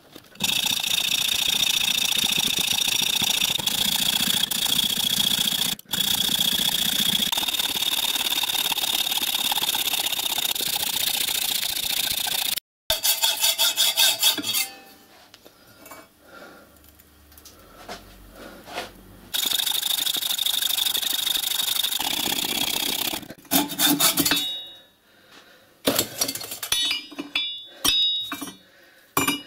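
Hand hacksaw with an 18-tooth blade cutting through an old steel tram rail, a steady continuous rasp. It stops abruptly about twelve seconds in, runs again through the middle, and near the end gives way to a few metallic knocks and clinks as the cut is finished.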